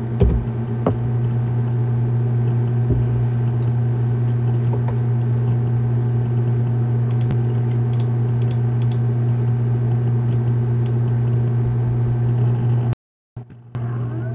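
Steady low hum, with a few keyboard keystrokes near the start as a password is typed and faint clicks later. The sound cuts out briefly near the end.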